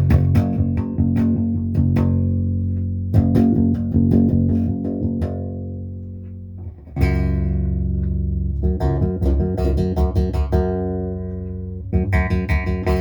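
Lyle 5120 short-scale hollow-body electric bass played on its neck pickup: plucked notes that ring out and fade, then from about halfway a brighter run of repeated notes.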